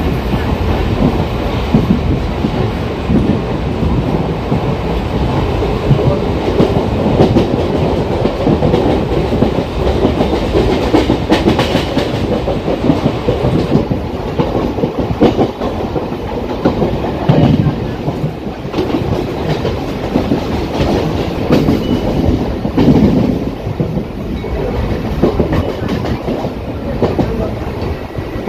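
Mumbai suburban electric local train running at speed, heard from inside a coach: a steady loud rumble with the wheels clacking over the rails.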